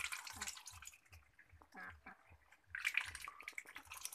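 Ducks dabbling their bills in a metal bowl of watery feed: rapid wet slurping and splashing, in two bursts, the first right at the start and the second from a little under three seconds in.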